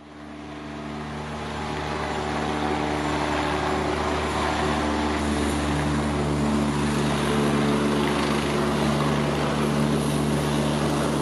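Eurocopter EC145 rescue helicopter hovering, its rotor and twin turbines running steadily with a held, many-toned hum over a rushing noise. The sound fades in over the first two seconds, then stays even.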